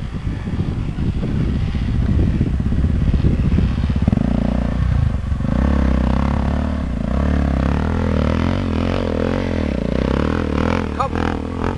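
Off-road motorcycle engine revving hard under load as the bike climbs a steep dirt slope, its note rising and falling with the throttle.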